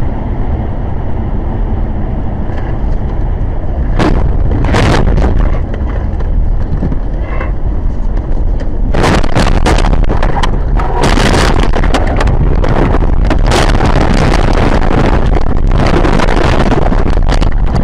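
A car crashing off the road, heard from a dashcam inside it. Loud road and wind noise runs throughout, with sharp knocks about four and five seconds in. From about nine seconds on there is a long run of loud crashing and banging as the car leaves the road, with debris flying.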